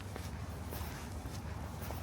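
Footsteps crunching on beach sand at a walking pace, about two a second, over a steady low rumble of the sea.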